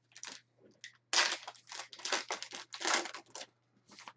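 Foil wrapper of a football trading card pack being torn open and handled, a run of short rustling bursts, loudest about a second in and again near three seconds.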